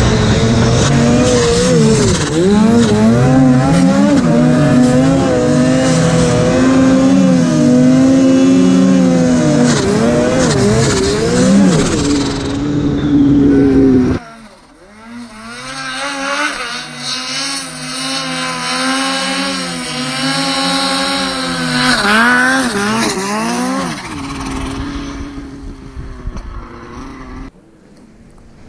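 Snowmobile engine revving hard during a steep chute climb, its pitch rising and falling as the throttle is worked. About halfway in the sound drops suddenly to a quieter, more distant run of the same up-and-down revving, which fades near the end.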